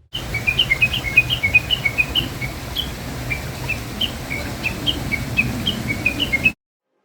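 Birds chirping: many short, quick chirps at two alternating pitches, repeated over a steady outdoor hiss and low rumble that cut in and out abruptly.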